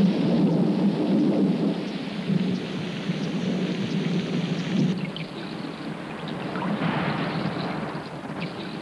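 Heavy tropical rainstorm with a low rumble of thunder, heaviest in the first half; later the rain is heard falling on a river's surface.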